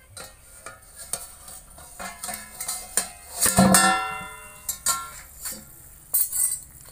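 A steel plate used as a pan lid being lifted off with metal tongs and set down: a run of metallic clinks and scrapes, with one loud ringing clang of the plate a little past halfway.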